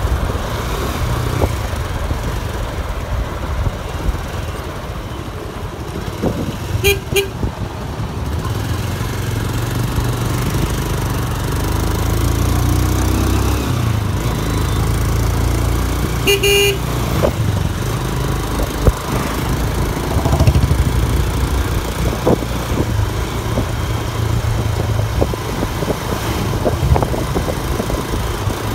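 Motorcycle engine running steadily while riding. A horn toots twice in quick succession about seven seconds in and once more about sixteen seconds in.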